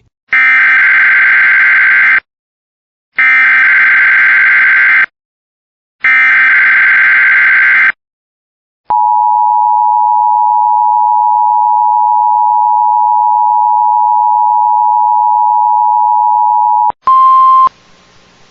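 Emergency Alert System test: three bursts of SAME digital header data, each about two seconds long with short gaps between. Then the two-tone EAS attention signal sounds steadily for about eight seconds. A brief higher tone follows near the end and cuts off suddenly.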